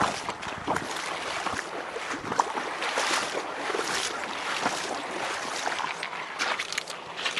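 An angler's steps splashing through shallow river water and onto loose gravel, heard as an irregular run of clicks and splashes over a steady hiss of wind on the microphone.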